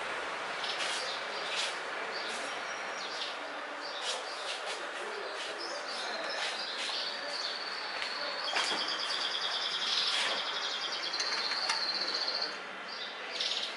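Small birds chirping: many short high chirps, and a long high trill from about six seconds in until near the end, over a steady background hiss.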